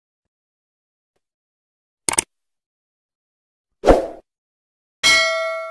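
Sound effects of a subscribe-button animation: a short click about two seconds in, a sharper pop just before four seconds, then a bell ding about five seconds in that rings on.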